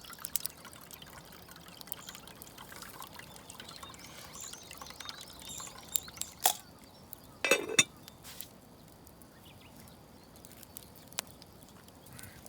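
Water being poured and trickling as rice is readied in a pot. A few sharp knocks and clinks come about six to eight seconds in.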